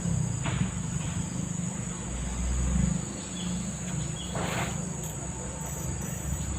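Steady high-pitched insect buzzing over the low, steady rush of a fast-flowing river, with two brief hissing noises about half a second and four and a half seconds in.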